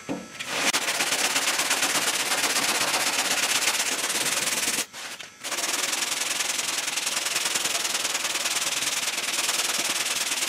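Dura Block foam sanding block with 3M sandpaper worked by hand back and forth over cured Rage Ultra body filler on a car fender: steady sanding, with a brief pause about five seconds in.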